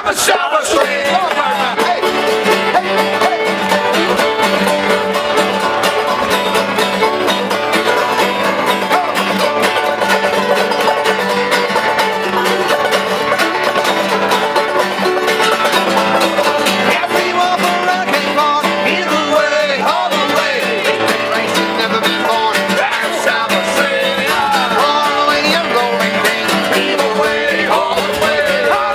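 Background music: a country-style track with plucked string instruments, playing steadily.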